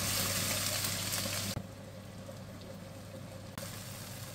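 Frying sizzle in a wok: blended chili paste hissing loudly as it hits hot oil. About a second and a half in, the sizzle drops suddenly to a quieter frying sound of chicken pieces cooking in the sambal as they are stirred.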